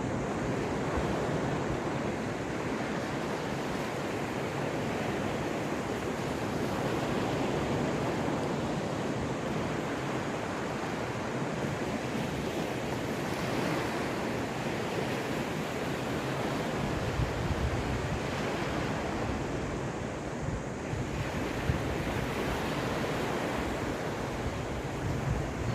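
Caspian Sea waves washing on the shore in a steady, unbroken surf. Wind rumbles on the microphone and grows stronger in the last third.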